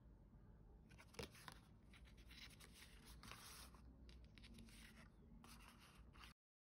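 Faint rustling and sliding of paper as a stack of printed art cards is leafed through by hand, with a light tap about a second in. The sound cuts off suddenly near the end.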